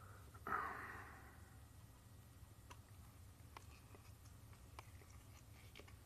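A sudden breathy exhale, like a sigh, about half a second in and fading over a second. After it come a few faint, scattered clicks of a knife tip worked against a tiny enclosure screw in place of a lost Phillips screwdriver, over a low steady hum.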